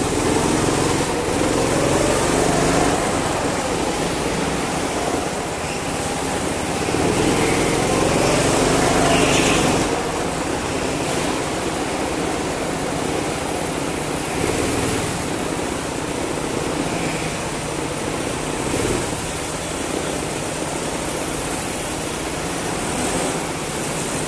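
Onboard sound of a go-kart's engine running at speed, its pitch climbing and falling repeatedly as the kart accelerates and slows through the track.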